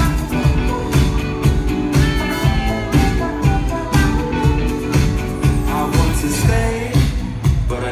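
Live band music from a drum kit, bass, electric guitar and keyboards, with the drums keeping a steady beat about twice a second. It is recorded on a phone's microphone from the crowd.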